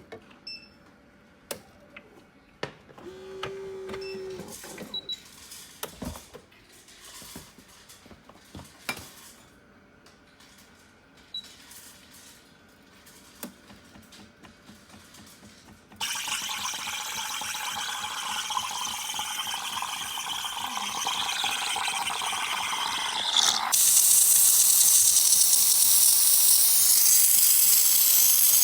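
Automatic espresso machine: clicks and a brief motor hum, then a steady hiss of steam from about halfway through that turns louder and higher for the last few seconds.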